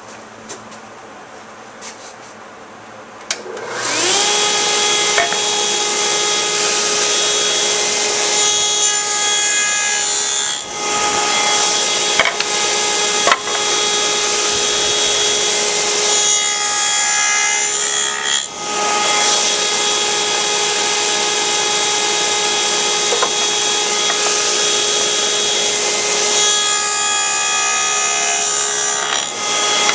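Table saw switched on about three seconds in: the motor spins up with a rising whine, then runs steadily. Three times the blade cuts into a board fed on end, each cut lasting two to three seconds: cheek cuts for tenons.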